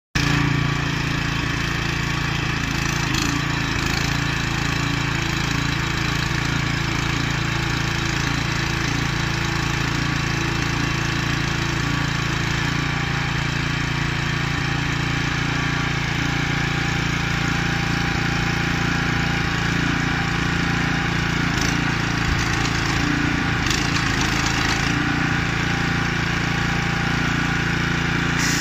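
Small petrol engine on an airless road marking machine running steadily at a constant speed, with a few brief clicks.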